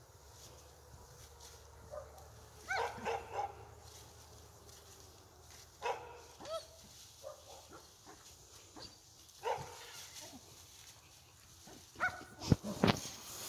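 A dog giving short barks and yips at intervals while playing, three in quick succession about three seconds in, and the loudest ones near the end.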